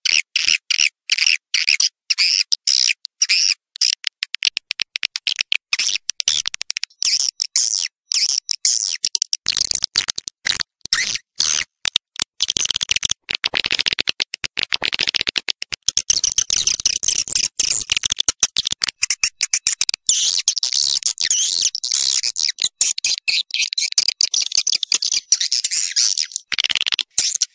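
Swiftlet call recording: dense, rapid, high twittering and chittering of swiftlets, chopped into bursts by many brief silent gaps. It is a lure track of the kind played in swiftlet houses to call swiftlets in and get them to roost.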